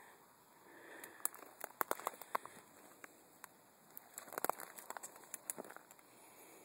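Close rustling and crackling handling noise: sharp crackles and clicks in two clusters, about a second in and again around four and a half seconds in.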